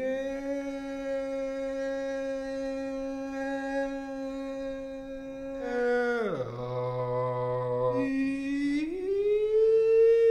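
A man's voice drawing out a word in long held, sung-like notes: one steady note for about six seconds, a sudden slide down to a low note, then a rise to a higher note held near the end. It is a comically exaggerated pronunciation of the name "Pearson".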